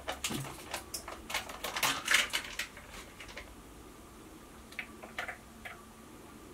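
Plastic pot of double cream being picked up and opened: a quick run of clicks and crackles for about three seconds, then a few faint taps as the cream is poured.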